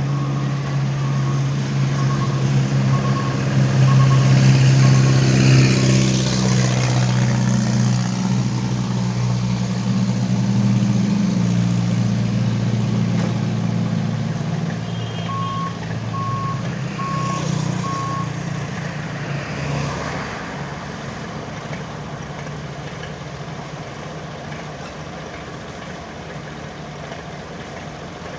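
Heavy vehicle's diesel engine running steadily, with a reversing alarm beeping in two short spells, about five beeps near the start and four more midway. The engine grows fainter over the last third.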